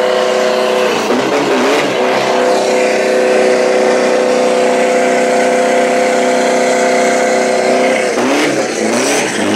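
Isuzu four-door pickup's turbo-diesel engine held at high revs during a burnout, the rear tyres spinning and smoking. The revs hold steady and waver briefly about a second in and again near the end.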